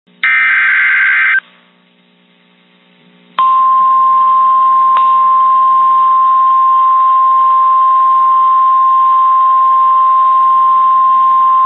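Emergency weather alert tones over radio: a one-second burst of warbling data tones, the SAME digital header, then after a short pause a single steady alarm tone just above 1 kHz. That tone is the NOAA Weather Radio warning alarm tone that comes before a warning message.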